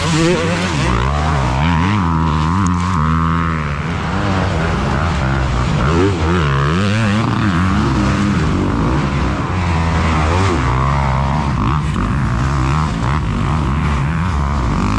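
Several dirt bike engines revving at once, their pitch rising and falling over and over as the riders work the throttles.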